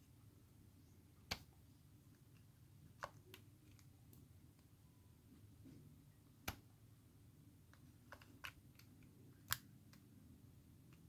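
Near silence with a faint low hum, broken by about seven small, sharp, isolated clicks spaced unevenly a second or more apart.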